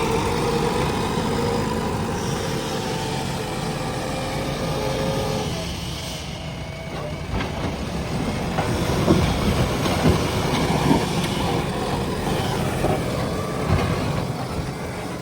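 JCB 3DX backhoe loader's diesel engine working under load, with a steady whine for the first five seconds or so. From about the middle on comes an irregular run of knocks and clanks.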